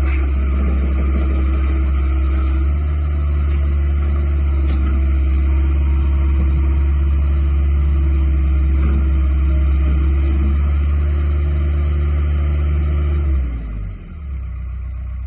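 Kobelco SK120LC tracked excavator's diesel engine running steadily at raised revs, then throttled down near the end, its pitch falling to a lower, quieter idle.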